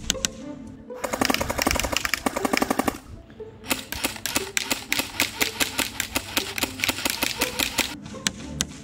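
Airsoft AK-47 electric gun with a version 3 gearbox firing on full auto in two long bursts, the first of about two seconds and the second of about four, a rapid even clatter of shots. Its slow rate of fire is put down to the 8.4-volt NiMH battery that drives it. Background music plays underneath.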